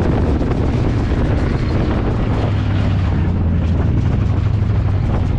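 Ford Crown Victoria dirt-track race car's V8 running, heard from inside the cabin with wind and track noise, settling into a steady drone about halfway through. The car is running with a busted radiator, coolant steam filling the cabin.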